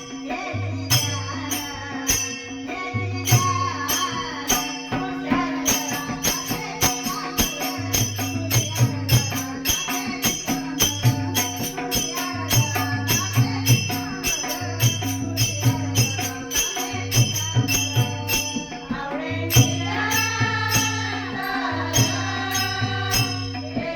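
Marathi bhajan music: a mridang drum and jingling hand percussion keep a fast, steady beat over a held drone, with a voice singing for a few seconds near the end.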